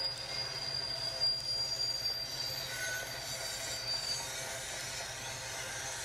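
Model freight train rolling along its track with a steady, high-pitched screech that fades out about four seconds in, over a low, steady running rumble.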